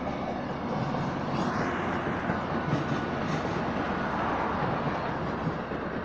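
Amtrak California bilevel passenger coaches rolling past on the track: a steady rumble and rush of steel wheels on rail.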